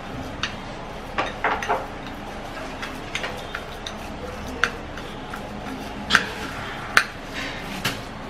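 A metal spoon stirring a thick, grainy sugar, baking soda and honey paste in a cut-glass bowl, knocking against the glass in irregular clinks and scrapes. The sharpest clinks come in the second half.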